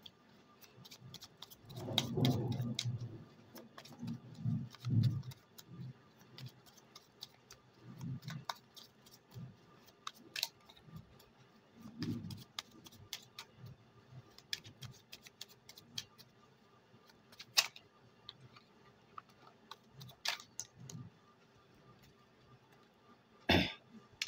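A tarot deck being shuffled by hand: soft, irregular rustling and light clicking of the cards, with a sharper card sound just before the end as a card is pulled from the deck.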